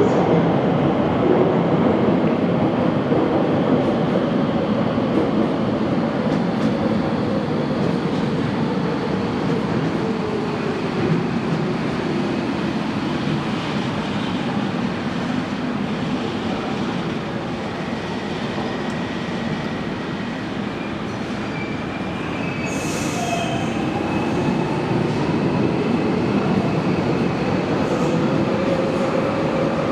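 Docklands Light Railway trains running over the track, their motor whine falling in pitch as one train passes and rising again as another comes in near the end. A thin, high wheel squeal runs through the second half, with a brief hiss a little past the middle.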